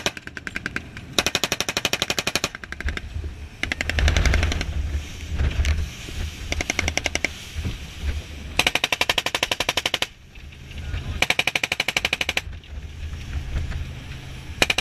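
Automatic gunfire from the marines' weapons in a fast boat, likely the boat-mounted FN MAG machine guns with C7A1 rifles. It comes as about half a dozen long bursts of rapid shots a few seconds apart, the loudest about a second in and around eight to twelve seconds in, over the low drone of the boat's engines.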